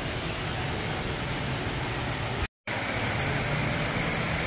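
Steady rushing noise of an indoor waterfall in a large atrium, cutting out completely for a moment a little past halfway.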